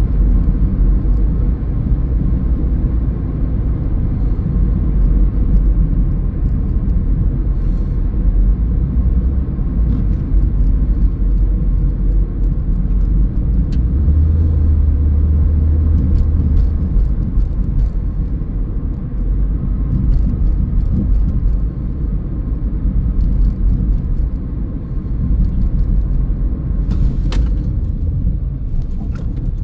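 Steady low rumble of a car driving along the road: tyre and engine noise. It deepens for a few seconds in the middle, and there is a single sharp click near the end.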